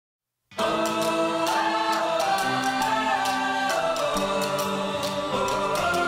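Background music that starts suddenly about half a second in: long held chords over a steady beat.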